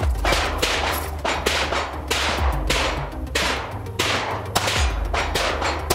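Handgun shots fired in a steady series, about two or three a second, over background music with a deep, slow beat.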